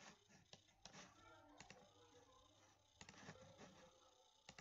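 Near silence: room tone with a few faint, scattered computer mouse clicks.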